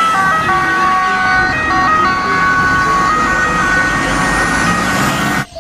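An Italian ambulance's two-tone siren, alternating between a high and a low pitch. It cuts off suddenly near the end.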